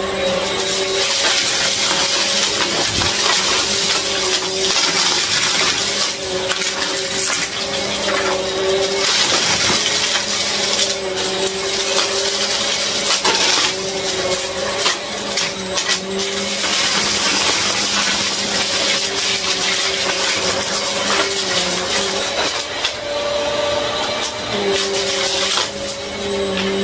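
Upright vacuum cleaner running on carpet: a steady motor hum under a loud rush of air that swells and eases every few seconds as it is pushed back and forth, with occasional small clicks and rattles of debris being picked up.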